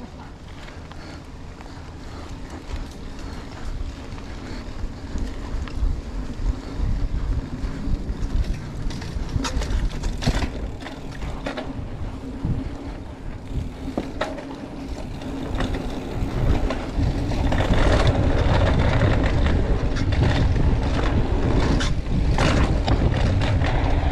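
Mountain bike riding fast down a dirt trail: wind rushing over the microphone, tyres rumbling, and sharp knocks and rattles from the bike over bumps. It gets steadily louder as speed builds, levelling off about two-thirds of the way through.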